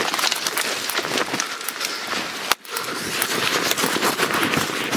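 Dense crackling and rustling of dry twigs and brush snapping and scraping as someone pushes quickly through undergrowth with the camera, with many small cracks and one sharp crack about two and a half seconds in, followed by a brief drop in sound.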